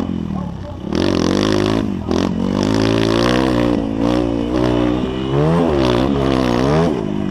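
Motocross bike engine heard from on board, revving hard and easing off in turn, its pitch climbing and dropping again and again with the throttle and gear changes. It goes briefly quieter about half a second in, then comes back on full throttle about a second in.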